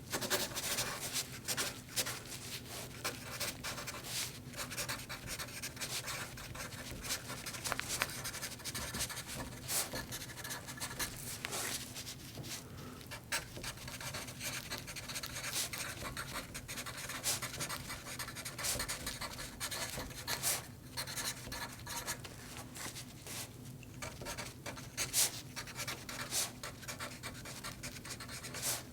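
Pen writing on paper: continuous scratching, broken by many short, sharp strokes, over a faint steady low hum.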